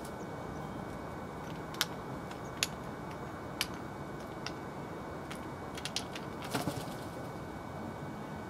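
A Eurasian jay pecking at peanuts on paving: scattered sharp taps and clicks, at first a second or so apart, then a quick cluster of them about six seconds in, over a steady background noise.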